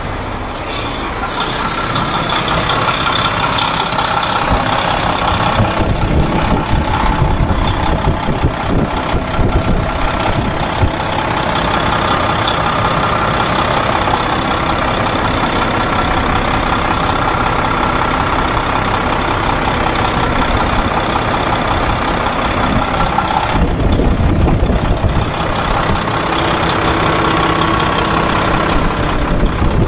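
Mack MP8 inline-six diesel engine idling steadily, with the truck's air system still building pressure.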